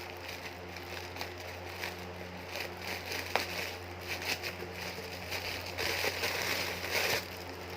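Rustling and crackling handling noise with scattered small clicks as a plush reversible octopus toy is handled and turned over to its other side, heaviest about two-thirds of the way in, over a steady low hum.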